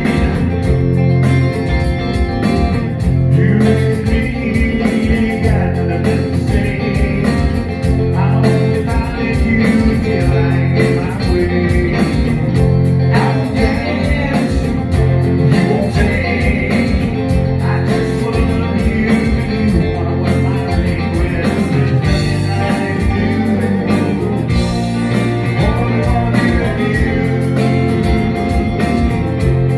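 Live band playing a song on electric guitar and electric bass, with a singer's voice over the instruments.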